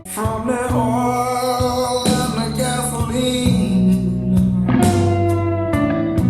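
Music played back through a bookshelf loudspeaker: a guitar-led track with a steady bass line and drums.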